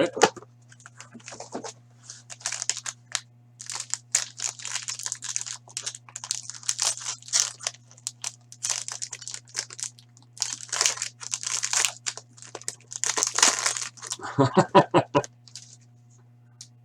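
Plastic packaging crinkling and tearing in irregular rustling bursts as a sealed hockey card box is unwrapped and its contents handled.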